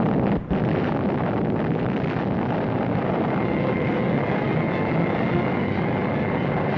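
Atomic bomb test explosion on a newsreel soundtrack: a dense, steady rumbling roar, with one brief drop about half a second in.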